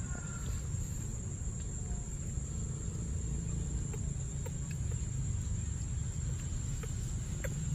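Steady low outdoor rumble with a constant thin, high-pitched whine above it and a few faint ticks.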